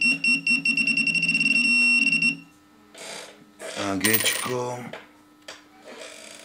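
Minelab Pro-Find 35 pinpointer giving its target alert as a coin comes near its tip: a loud, steady high-pitched tone over a fast pulsing buzz, lasting about two and a half seconds. It then stops.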